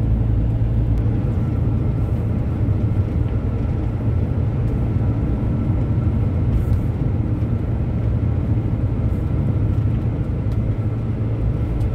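Camper van driving along the road: a steady low drone of engine and road noise.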